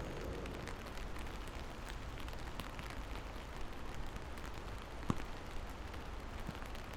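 Steady rain falling, with many scattered drops ticking on a surface and one sharper drop about five seconds in.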